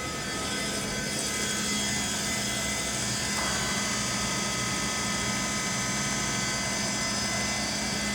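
LeBlond 4025 NK heavy-duty gap lathe running under power, a steady machine drone with several steady whining tones over a low hum. It grows a little louder about half a second in and its tone shifts slightly a few seconds later.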